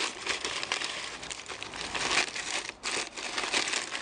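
Crumpled newspaper rustling and crinkling as gloved hands pull it open and rummage through it, in an irregular run of crackles with a brief pause near the end.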